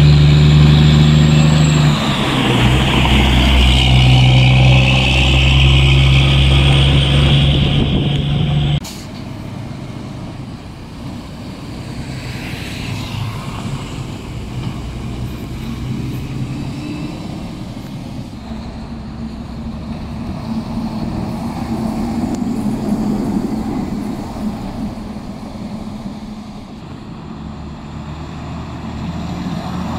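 Heavy diesel dump truck engine running loud and close, with a steady deep hum. It cuts off suddenly about nine seconds in, giving way to quieter, more distant truck engines and traffic noise.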